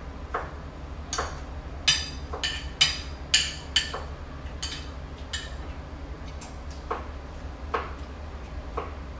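Eating at a table: a run of sharp clicks and taps of cutlery, plates and mouths, thickest between about one and five seconds in, over a steady low hum.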